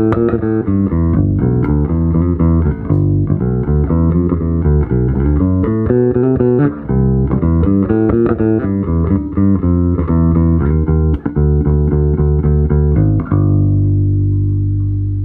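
OOPEGG Stormbreaker electric bass guitar being played: a quick run of plucked notes, ending about 13 seconds in on one held note that rings on.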